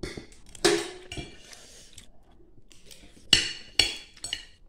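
A metal fork clinking against a ceramic plate of noodles: about six sharp, ringing clinks, the loudest a little over three seconds in.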